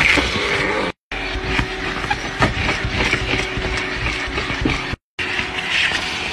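Vacuum cleaner running with its crevice nozzle drawn over car carpet and seat upholstery, grit and debris clicking and rattling as they are sucked up the hose. The sound cuts out for a moment twice.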